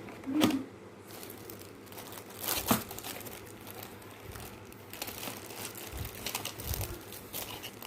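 Crinkling and rustling of things being handled, with a few sharp clicks, the loudest about half a second in and again near three seconds.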